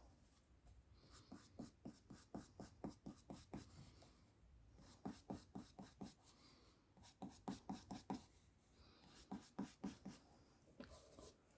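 Blending brush swished in quick strokes over card stock, working ink through torn tissue paper to make clouds. It comes in four short runs of rapid strokes, about five a second, with brief pauses between them.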